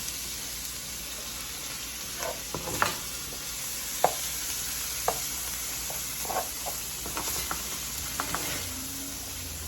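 Food sizzling in a pan on the stove, with a utensil now and then clicking and knocking against the pan as it is stirred.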